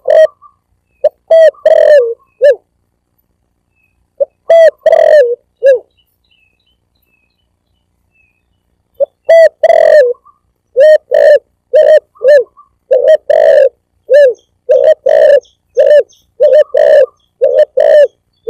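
Spotted dove cooing in repeated phrases of short, low notes, played as a hunting lure call. The phrases break off twice, once for about two seconds and once for about three, then the coos come thick and fast through the second half. The recording is very loud, peaking at full scale.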